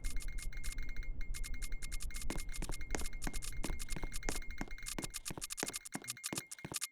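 Rapid electrical clicking, about three clicks a second, over a thin steady high tone and a low hum; the hum dies away near the end.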